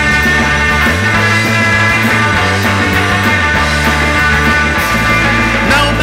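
Loud rock music, a full band playing an instrumental stretch without singing.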